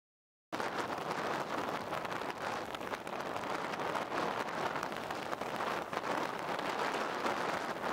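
Silent for about half a second, then a steady rushing noise of wind and choppy sea waves sets in and carries on evenly.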